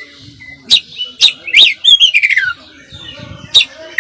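Oriental magpie-robin (kacer) in full, varied song: sharp clipped notes mixed with whistled phrases, one of them sliding down in pitch about two seconds in.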